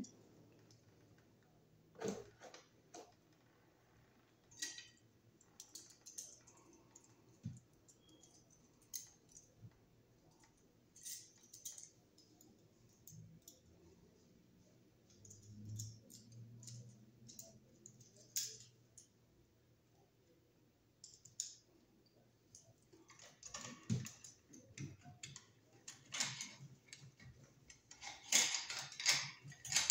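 Faint, scattered clicks and ticks of a wire stripper's screw cutter working on a freshly shortened machine screw as it is run back and forth to clean the cut threads. The clicks come closer together over the last several seconds.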